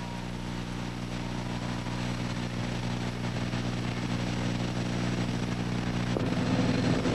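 Motor grader's diesel engine running steadily as the machine drives past, growing louder; the engine note changes about six seconds in.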